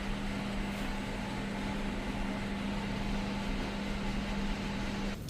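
A household appliance running with a steady low hum and an even whirring noise, which cuts off abruptly near the end.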